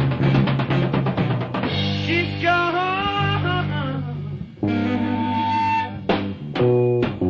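Live blues-rock trio of electric guitar, bass and drums from a 1967 club recording. Rapid drum strokes pound over a held bass note, then the electric guitar bends notes upward, sustains one note, and the band lands a few sharp hits together near the end.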